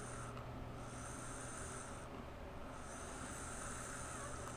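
Air drawn through a Golden Greek Penelope rebuildable atomizer during a vape hit with the mod on its higher yellow setting: a soft, high hiss in three stretches, broken by short pauses.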